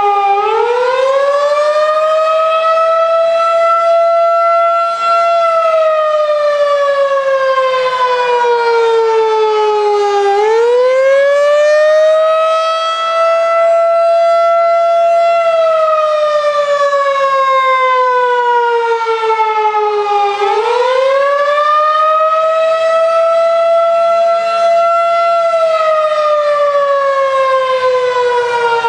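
Federal Signal 2001-DC outdoor warning siren sounding the Attack signal: a wail that climbs quickly, holds high for a few seconds, then slides slowly down, repeating about every ten seconds. Three climbs are heard. It is loud and has many overtones.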